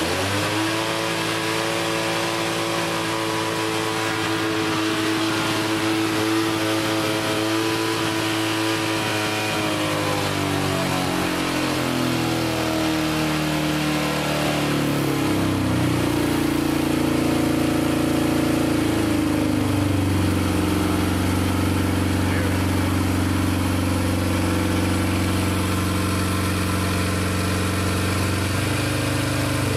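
1966 Honda CL160's parallel-twin engine running at a raised, steady speed. About ten seconds in, its note falls and it settles into a lower idle while the carburettor is adjusted with a screwdriver after a rebuild.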